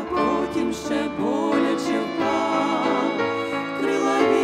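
Violin playing a melody with vibrato over grand piano accompaniment, part of a Christian song.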